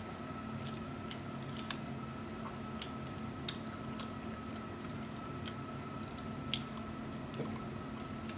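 Close-up seafood-boil eating sounds: wet squishing and chewing as shrimp and snow crab legs are peeled and eaten by hand, with scattered small clicks and snaps of shell, over a faint steady hum.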